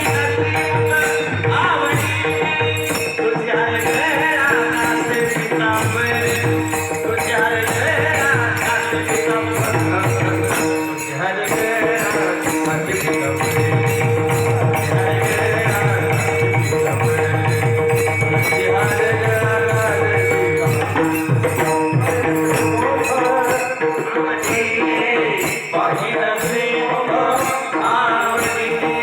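Varkari devotional bhajan music: a melody wavering over a steady drone, with a mridang drum and jingling cymbals keeping a continuous, steady beat.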